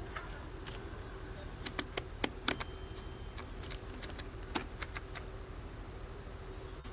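Irregular sharp clicks, bunched together about two seconds in, over a steady low hum.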